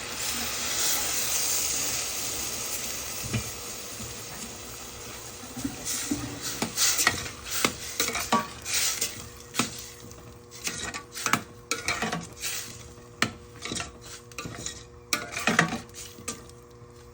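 Water hissing and sizzling as it hits a hot pot of boiling potatoes, fading after a few seconds. Then a metal utensil stirs and knocks against the pot in an irregular run of sharp clinks and clanks.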